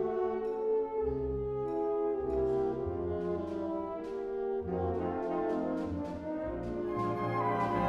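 Symphonic wind band playing sustained brass chords over low bass notes, with sharp percussion strokes struck throughout.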